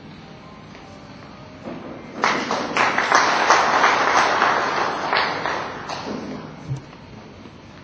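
Audience applauding: clapping starts about two seconds in and dies away around six seconds.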